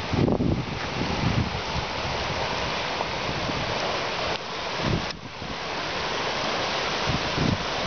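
Creek rushing over rocks in fast whitewater rapids, a steady full rush, with a few low gusts of wind buffeting the microphone.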